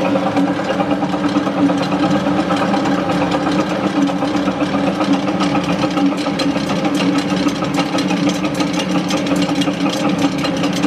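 GE LM2500 gas turbine turning over after its test run: a steady mechanical hum with two low tones, and a rapid ticking that grows stronger in the second half.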